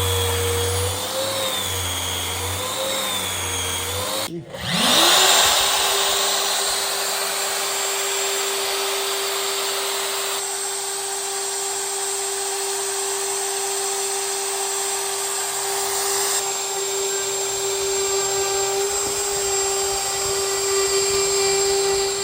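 Router with a 1/8 inch roundover bit easing the tabletop edges, its pitch wavering as it works. After a brief break about four seconds in, the router spins up and runs at a steady high whine for the rest of the time.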